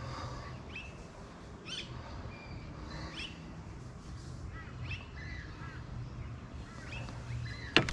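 Wild birds chirping and calling, short quick notes that slide up or down, a few each second. A single sharp click comes near the end.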